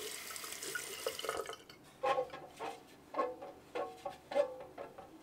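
Water running from a bathroom tap into a sink for about the first second and a half. Then short, brass-like musical notes start about two seconds in, one roughly every 0.6 s.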